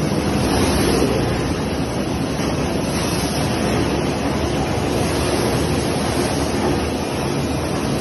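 Stainless steel bubble-type fruit washing machine running, its water churning and spraying in a steady rushing noise.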